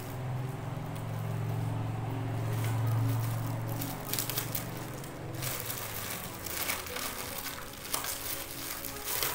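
Parcel packaging crinkling and crackling as it is handled and unwrapped, in scattered crackles through the second half. A steady low hum swells and fades over the first four seconds.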